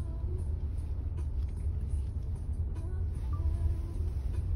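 A car's engine and road noise heard from inside the cabin as it rolls along: a steady low rumble.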